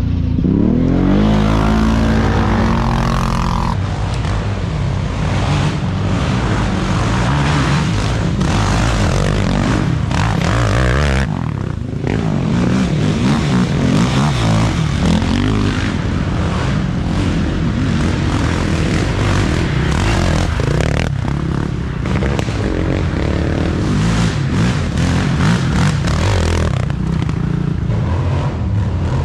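Racing ATV quad engines under hard throttle as the quads ride by close, the engine pitch climbing steeply as one accelerates in the first few seconds, then rising and falling with the throttle.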